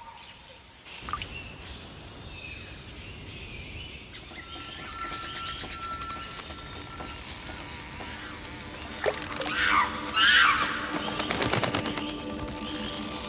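Tropical rainforest ambience: steady high insect trilling with bird calls, which grow loud and busy about two-thirds of the way through. A low steady hum comes in near the end.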